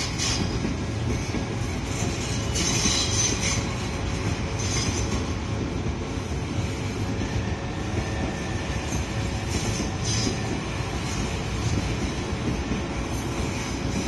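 Odakyu commuter train running through a level crossing, its wheels clattering and squealing on the rails in a steady rumble.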